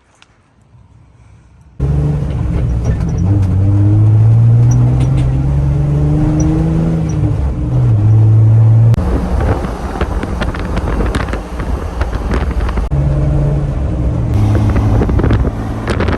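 Jeep engine and exhaust running under way, starting abruptly about two seconds in after a quiet stretch; the engine's pitch climbs slowly, then drops and rises again in steps as the throttle changes, with scattered rattles and clicks over the drone.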